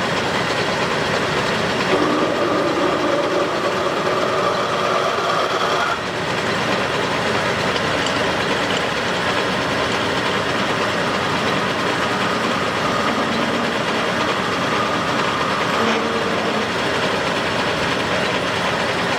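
A metalworking shop machine running steadily under load, a dense mechanical noise with a faint whine over it that dips slightly about six seconds in.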